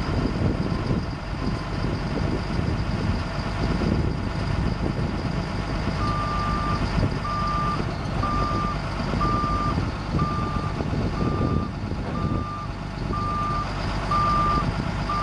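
Caterpillar 3126 six-cylinder turbo diesel engine of a GMC C7500 truck running. About six seconds in, a reverse backup alarm starts beeping, roughly once a second, as the truck is put in reverse.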